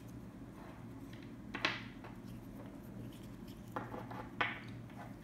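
Large plastic lacing beads clicking against each other and the tabletop as they are handled and threaded onto a cord: three short, sharp clicks spaced a second or two apart.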